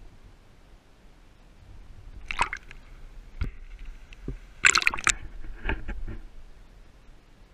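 Water sloshing and dripping around a GoPro in its waterproof housing as it comes up through the surface and goes back under. There are a few short splashy bursts and a knock about three and a half seconds in; the loudest splash comes at about five seconds.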